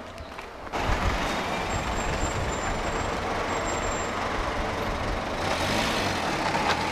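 Street traffic noise with a heavy vehicle's engine running close by, a steady rumble that starts abruptly about a second in.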